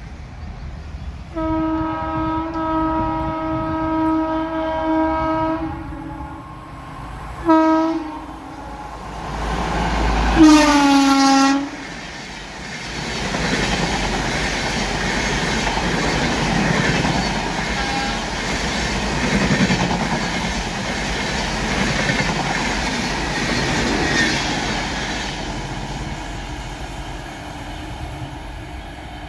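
WAP-4 electric locomotive's horn: a long steady blast, a short toot, then a third, loudest blast that drops in pitch as the locomotive goes by. The coaches follow, rolling past with a loud rushing clatter that fades near the end.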